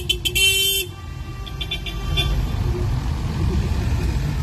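A car horn gives a quick run of short toots and a longer blast at the start, then a fainter run of toots about two seconds in, over the low running of passing car engines.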